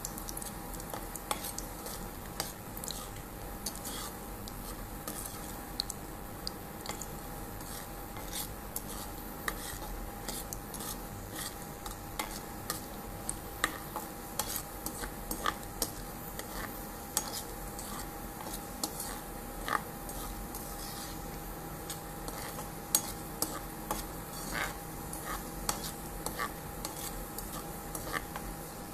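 Metal slotted spoon stirring cashews and almonds frying in ghee in a nonstick kadai, with frequent short scrapes and taps against the pan over a low sizzle.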